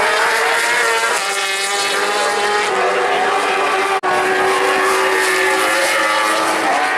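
World Superbike racing motorcycles at high revs through a fast section, several engines overlapping and shifting in pitch as they pass. The sound drops out for an instant about four seconds in.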